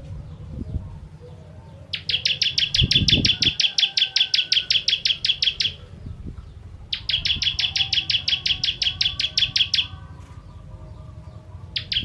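Ciblek kristal (a prinia) singing two rapid trills of sharp, evenly repeated chip notes, about six or seven notes a second, each run lasting three to four seconds with a pause between.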